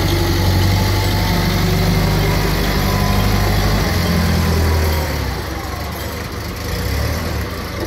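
Engine of an LPG-powered Hyster 3.00 forklift running steadily as the truck drives off. The hum shifts in pitch about four seconds in and grows fainter after about five seconds as the forklift pulls away.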